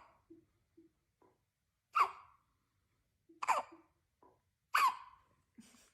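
Newborn babies hiccuping: three sharp little hiccups about a second and a half apart, with faint soft sounds between them.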